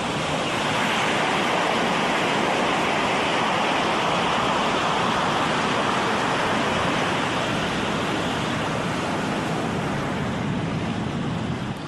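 Steady rushing water noise, like sea surf, growing a little louder about a second in and easing slightly near the end.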